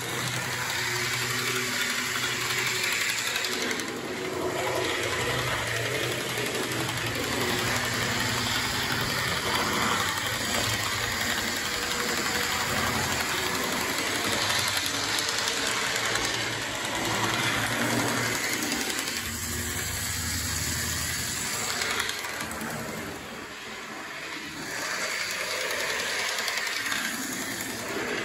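Model diesel locomotive of an FS Class D445 running on a model railway layout: a steady small-motor whirr and mechanical rattle that dips briefly about three quarters of the way through.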